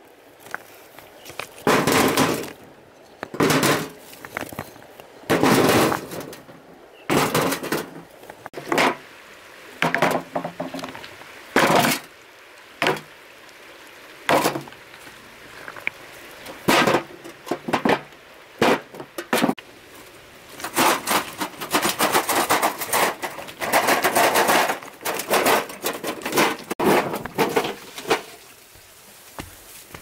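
Flat river stones clattering as they are picked up and dropped into a metal wheelbarrow, one sharp knock after another at irregular intervals of a second or two, with a longer run of clatter a little past the middle.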